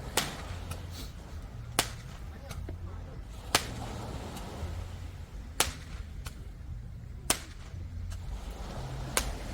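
Background music with a slow beat: a sharp snap or clap about every two seconds over a low, stepping bass line.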